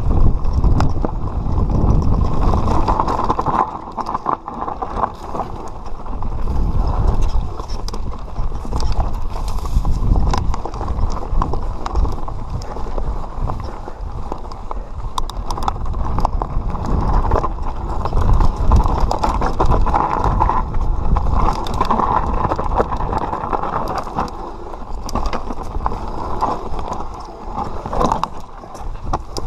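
Mountain bike descending a rough dirt and stone trail. Wind buffets the camera microphone while the tyres crunch over the ground and the bike rattles and clatters over bumps, in a steady stream of small knocks.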